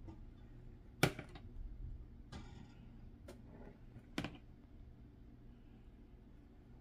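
Four short sharp clicks and knocks from handling a glazing bowl and a baking tray on an oven rack, the loudest about a second in, over a faint steady hum.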